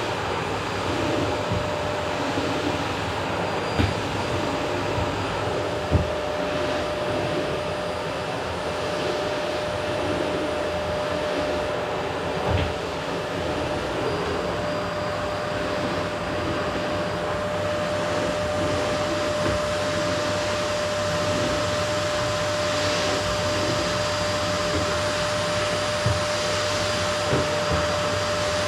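Vacuum cleaner running steadily on a wooden floor, an even rushing hiss with a steady whine, and a few light knocks as it is pushed about.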